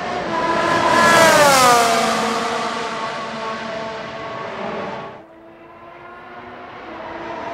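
Red Bull RB12 Formula 1 car's 1.6-litre turbocharged V6 driving past at speed: loudest about a second in, its note drops smoothly in pitch as it passes, then fades. After a sudden cut just past halfway, another Formula 1 engine is heard approaching, growing louder toward the end.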